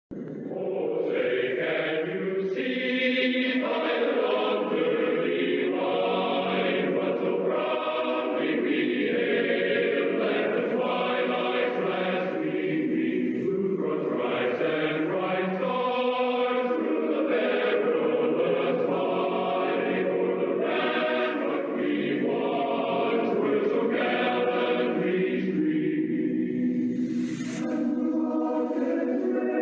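A choir singing a national anthem, continuous and muffled, as from a low-fidelity recording.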